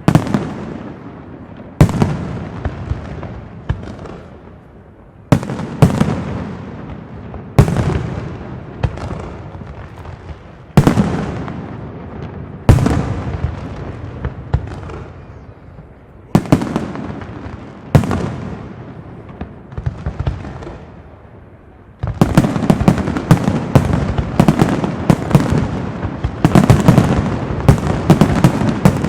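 Aerial firework shells from a Pirotecnia Zaragozana castillo bursting: single loud bangs every two to four seconds, each with a long echoing rumble. About three-quarters of the way through, this turns into a dense, rapid barrage of bangs.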